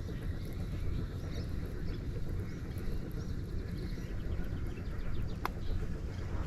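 Outdoor riverside ambience: small birds chirping over a steady low rumble. A single sharp click comes about five and a half seconds in.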